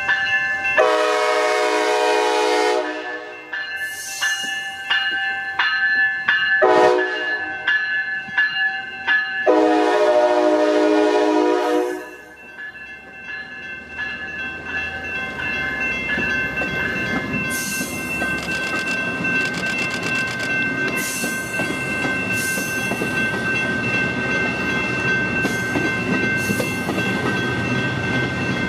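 Siemens Venture cab car's horn sounding as the train comes in: a long blast, a short blast and another long blast, over a bell ringing steadily. Then the passenger train rolls close by, its wheels rumbling and clacking over the rail joints while the bell keeps ringing.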